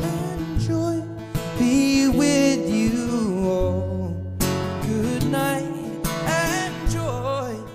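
Background music: a song with a singing voice over guitar.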